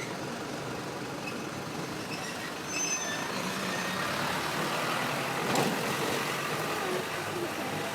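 A vehicle running steadily at a level crossing, with a brief high squeal about three seconds in and one sharp clack a little after halfway.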